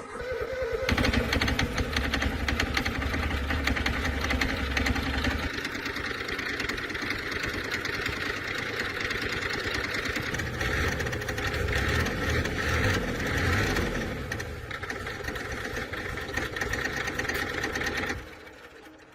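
Old tractor engine starting and running with a rapid, even beat of firing pulses, then cutting off abruptly about a second before the end.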